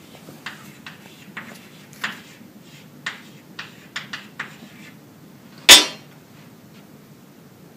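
Chalk tapping and scraping on a blackboard in a string of short strokes, then one loud, sharp knock about six seconds in.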